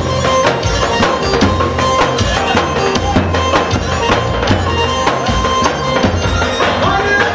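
Traditional Albanian wedding folk music: a held, wavering melody over a steady, even beat.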